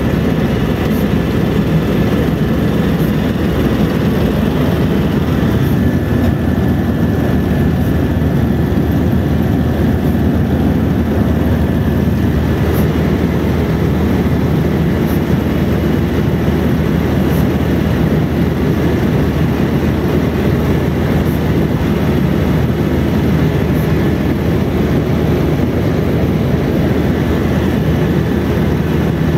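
Helicopter in flight heard from inside the cabin: a loud, steady drone of engine and rotor with a thin, steady high whine over it.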